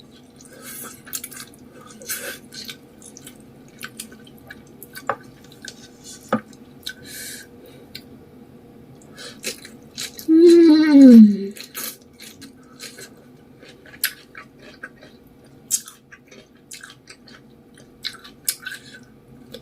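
Close-miked eating of spicy instant noodles with fish balls and vegetables: many short wet chewing and smacking clicks. About ten seconds in there is a brief, louder vocal sound that falls in pitch, like an 'mmm'.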